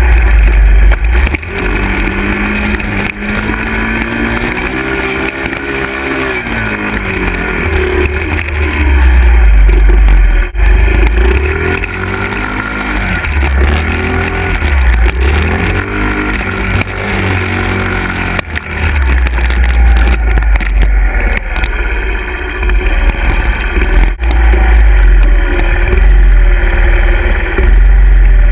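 Small Honda 50cc four-stroke single-cylinder dirt bike engine ridden over a dirt trail, its pitch rising and falling with the throttle, over heavy wind buffeting on the microphone.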